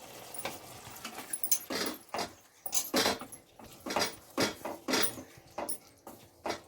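Metal spoon stirring and scraping in a pan of simmering tomato curry, a run of irregular scrapes and clinks about one or two a second, just after garam masala is added.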